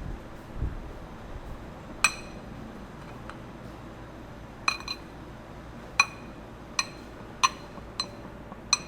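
Kitchen utensil clinking against a glass bowl or dish: about eight sharp clinks at uneven intervals, each ringing at the same pitch.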